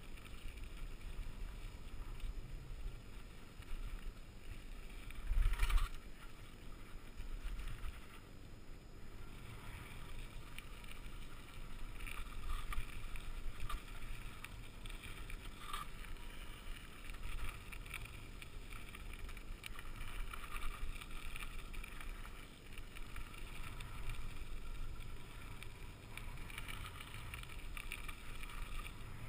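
Mountain bike riding fast down dirt singletrack: tyres crunching over packed dirt and small stones, the bike rattling, and wind rumbling on the camera microphone. A louder jolt comes about six seconds in.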